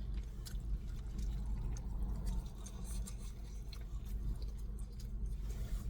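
A person chewing fried chicken, with soft irregular crunching clicks. A steady low hum sits underneath.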